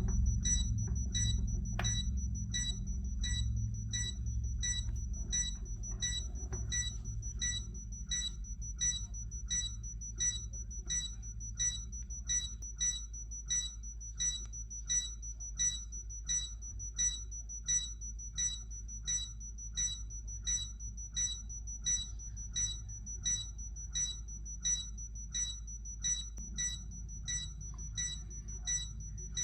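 Pixar's electronic countdown beep, the one used for AUTO's eye in Wall-E and for bomb timers in The Incredibles: short, high-pitched beeps repeating at an even, rapid pace over a steady low hum.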